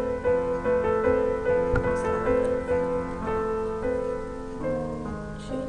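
Background instrumental music led by a piano or electric piano, playing a gentle melody of steady notes.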